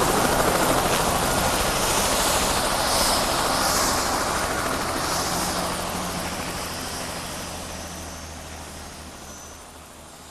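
Helicopter rotor and engine running steadily, growing fainter throughout.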